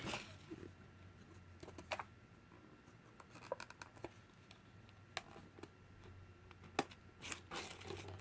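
Faint, scattered sharp clicks and short scrapes of a tool prying at a smartphone's plastic housing, with several close together near the end.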